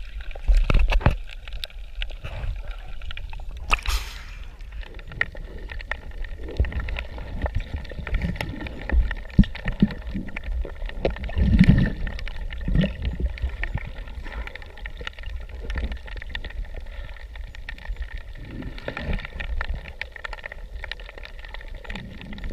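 Underwater sound through a submerged action camera: a muffled low rumble of moving water with scattered clicks and knocks, and a short loud burst of noise about four seconds in.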